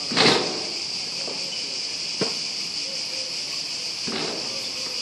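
Steady high-pitched drone of insects in the trees. There is a loud knock just after the start, the basketball striking the hoop on a shot, and a single sharp bounce of the ball on the court about two seconds in.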